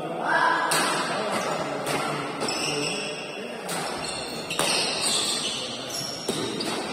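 Badminton rackets striking the shuttlecock in a doubles rally: about five sharp smacks, one every second or so, with voices talking in the hall behind.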